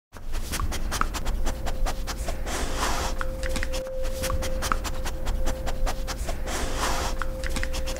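A dog panting as it runs, over constant rubbing, clicks and a low rumble from a camera jostling close to the dog's body. A faint steady tone holds throughout.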